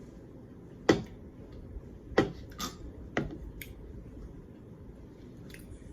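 Short, sharp clicks over quiet room tone: three loud ones about a second apart near the start, followed by a few fainter ticks.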